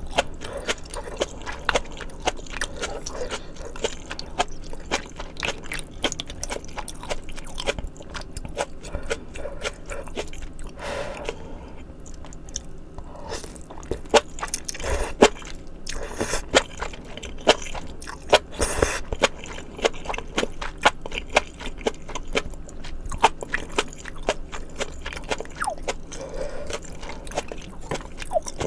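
Close-miked chewing and biting of spicy maratang, a stream of many small sharp mouth clicks with no pause.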